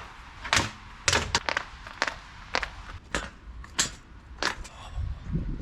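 A run of sharp crunching clicks, unevenly spaced at about two a second, with a low rumble near the end.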